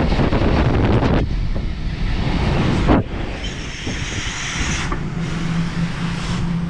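Belt-driven air handler blower, its motor run by a variable-frequency drive, giving a steady rush and rumble of air. About three seconds in a sheet-metal access door shuts with a thud, and the blower then sounds quieter, with a steady low hum.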